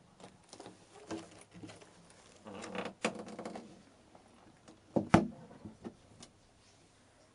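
Plastic packing bags rustling and an aluminium suitcase being handled as its lid is lowered, then a sharp clack about five seconds in as the lid shuts, followed by a few lighter clicks.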